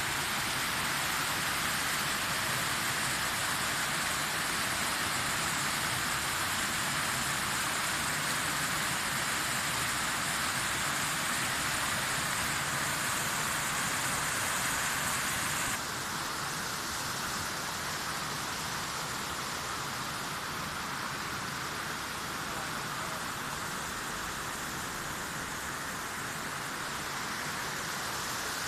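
Steady rush of flowing river water, an even hiss with no strokes or rhythm. About sixteen seconds in it shifts abruptly and becomes a little quieter.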